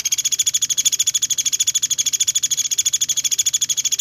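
A songbird's rapid trill: high notes repeated very fast and evenly, held steady without a break, the fast 'tembakan' style of song used as masteran for training caged songbirds.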